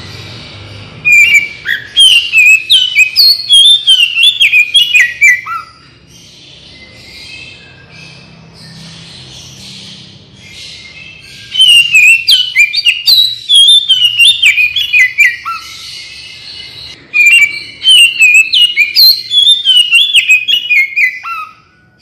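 Oriental magpie-robin (kacer) in full song: three loud phrases of rapid whistled notes, each run stepping down in pitch, with fainter notes between them.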